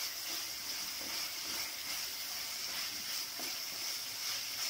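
Chopped onion, green chilli and tomato sizzling steadily in hot oil in a clay pot while being stirred with a wooden spatula.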